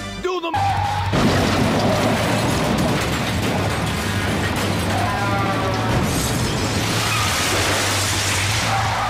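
Loud, distorted boom and crash noise with music under it, starting about half a second in and holding steady over a low drone to the end.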